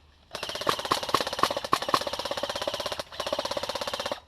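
Airsoft electric gun firing on full auto: two long bursts of rapid shots with a steady whine under them, broken briefly about three seconds in.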